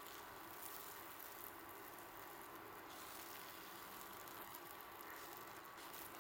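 Faint, steady sizzling of a paratha frying in oil on a non-stick pan, with a few light crackles.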